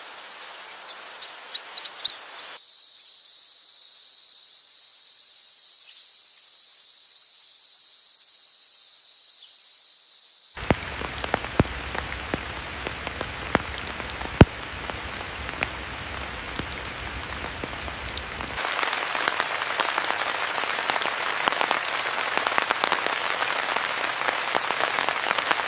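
Outdoor nature ambience in three abrupt sections: a few short chirps, then a steady high insect drone, then a rain-like hiss with scattered sharp clicks that grows louder near the end.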